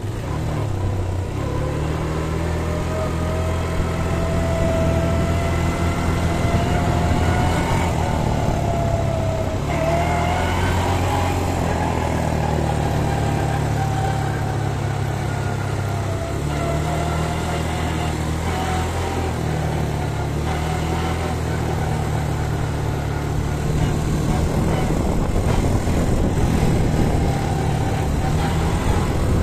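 ATV engine running while riding along a dirt trail, its note rising and falling in pitch several times as the throttle changes.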